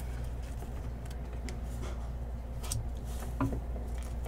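Trading cards being handled and restacked, with a few soft clicks and light rustles at irregular moments over a steady low hum.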